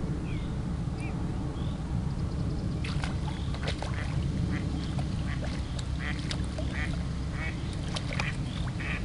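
Common carp of about 25 lb thrashing and splashing at the surface close to the bank as it is drawn to the landing net, a run of irregular splashes starting about three seconds in. A few short bird chirps come near the start.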